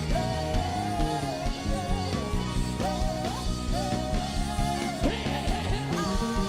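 Live worship music: a high melody line sliding between held notes over a steady bass line.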